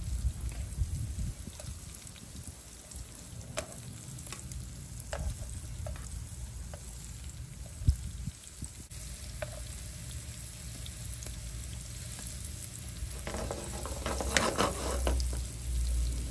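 Paneer shallow-frying in a little oil in a pan, a steady sizzle with scattered clicks of a utensil against the pan as the pieces are flipped. Near the end there is a louder burst of clattering and sizzling.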